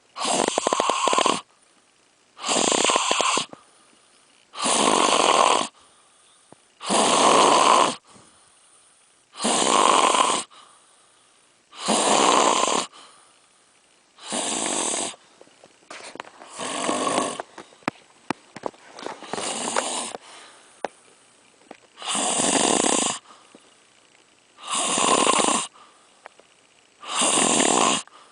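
Loud, regular snoring: about one snore every two and a half seconds, each lasting about a second. Through the middle stretch the snores turn weaker and more ragged, with small clicks between them.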